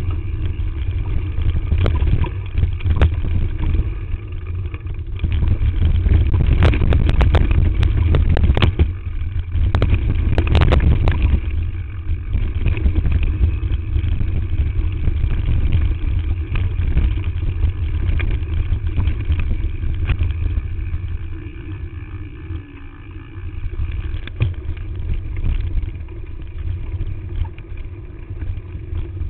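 Mountain bike ridden down a rough dirt trail: wind buffets the chest-mounted camera's microphone in a heavy rumble, over the rattle of tyres and frame on the ground, with a run of harder knocks and clatter between about six and eleven seconds in.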